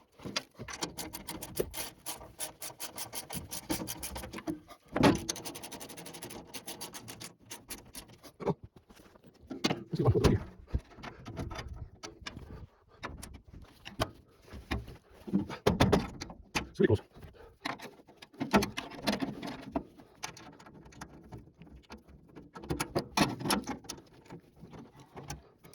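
Irregular rubbing, clicks and knocks of hands-on work, with a louder thump every few seconds.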